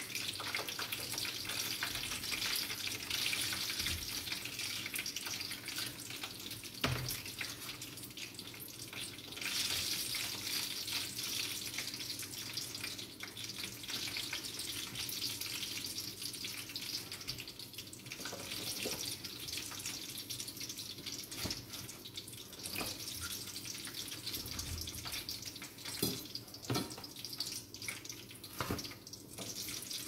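Rings of dough deep-frying in a pan of hot oil: a steady sizzle, with a few light knocks of the utensil against the pan as the cooked rings are lifted out.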